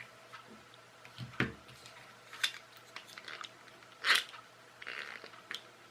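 A few faint, short clicks and soft rustles, the loudest about four seconds in, over a faint steady hum.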